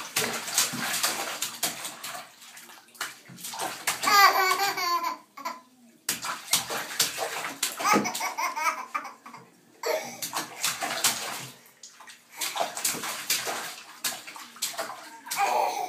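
Baby splashing bathwater with the hands in a bathtub, in repeated bursts with short pauses between. A high, wavy laughing squeal about four seconds in, and short giggles later.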